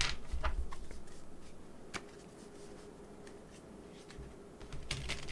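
Tarot deck being shuffled by hand: soft card rustles and light clicks, busier near the start and again near the end, with a quieter stretch in between.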